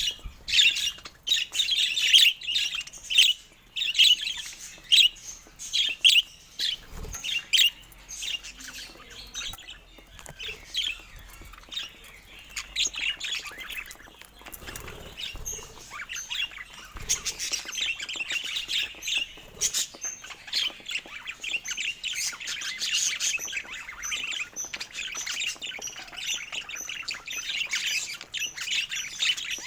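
Budgerigars chirping and chattering: a run of separate sharp chirps at first, then steadier, denser warbling chatter.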